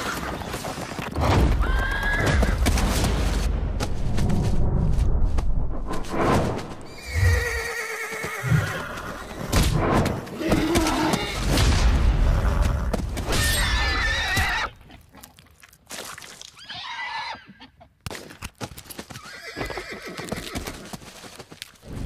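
Wild horses whinnying and squealing over a heavy rumble of galloping hooves; about two-thirds of the way through the hoofbeats fall away, leaving quieter calls.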